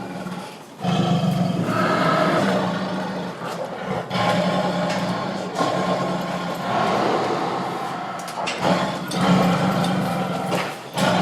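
Tiger roaring: several long, loud roars one after another, with short breaks between them.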